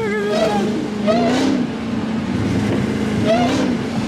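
Supercharged Hellcat Hemi V8 engine running with the hood off: a steady drone with short rises and falls in pitch about every two seconds.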